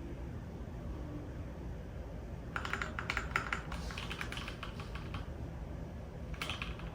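Computer keyboard typing: a quick run of key clicks starting about two and a half seconds in, a short pause, then another brief burst near the end, over a faint low hum.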